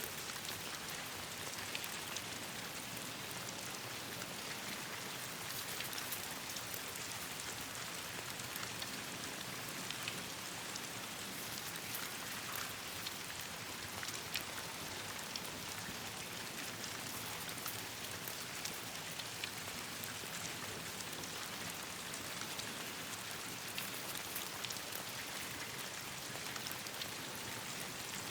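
Steady rain falling on leaves and branches, an even hiss dotted with many small sharp ticks.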